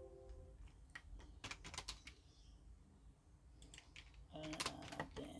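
Faint keystrokes on a computer keyboard: a few scattered taps, a quick run of them one and a half to two seconds in, and more near the end, as a command is typed into AutoCAD.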